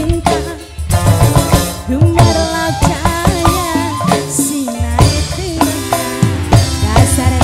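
Live dangdut band music: a woman singing a wavering melody over drums, keyboard and guitars.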